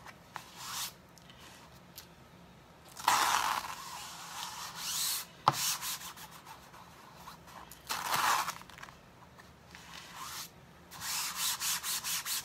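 A hand rubbing an adhesive silk-screen stencil transfer down onto a canvas: a few separate rubbing strokes, a single sharp click about halfway through, then quick even rubs about three a second near the end.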